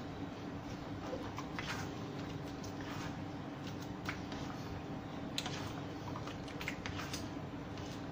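A ladle stirring a thick, boiling sweet-and-sour sauce in an aluminium wok, with soft scattered clicks and scrapes of the ladle against the pan over a steady low hum.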